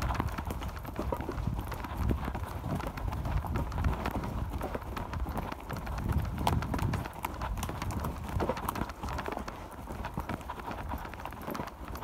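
Quick, irregular thudding footfalls of people running over a forest floor of needles and twigs.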